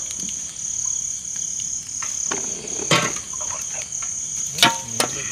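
Crickets chirring steadily in a high, even band, with a few sharp cracks and knocks, about two and three seconds in and again near the end, from the open wood fire where whole crabs are roasting.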